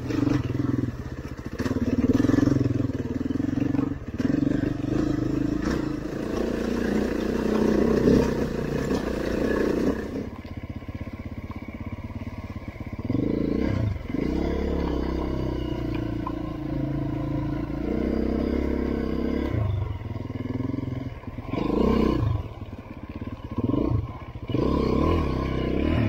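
Trail motorcycle engine running under load on a rough, rocky track, the engine note rising and falling as the throttle is opened and closed.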